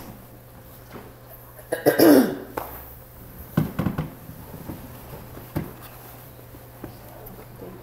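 A person coughs once, loudly, about two seconds in. A few short knocks and handling sounds follow, at the pulpit where papers are being gathered.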